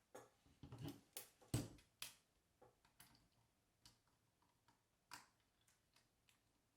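Small metal tools clicking and tapping against the body of a Minolta XG-9 film camera as its front plate is unscrewed and levered off. A quick run of clicks comes in the first two seconds, the loudest about a second and a half in, followed by scattered faint ticks.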